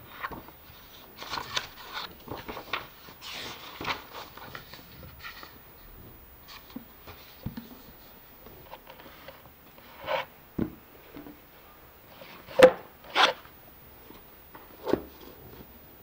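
Hardcover books being handled: covers and pages rustling and scraping, then several sharp knocks as the books are set against one another and stacked, the loudest two in quick succession near the end.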